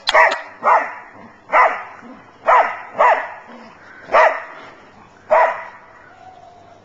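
A dog barking, about seven single barks at uneven intervals over roughly five seconds.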